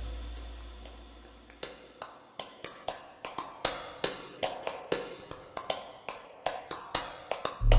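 A low tone fades out, then a run of sharp, irregular clicks, about three a second and closer together near the end. Loud music comes in at the very end.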